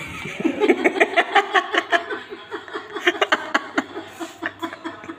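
People laughing in quick, repeated bursts, about five a second.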